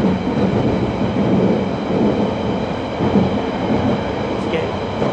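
Interior running noise of a London Underground Central line 1992 stock train in motion: a steady, loud rumble of wheels on the track with the carriage rattling and a few light knocks.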